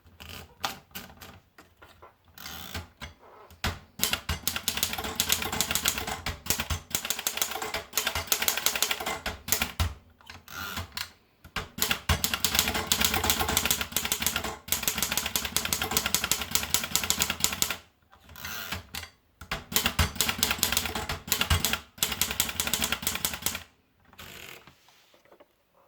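Erika Model S manual portable typewriter being typed on: fast runs of key strikes with short breaks between the runs.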